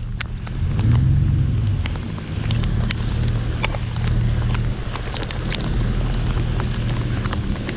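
Rain falling, with raindrops tapping sharply and irregularly on a waterproof action-camera housing, over the steady low hum and rumble of an electric mobility scooter driving on wet pavement.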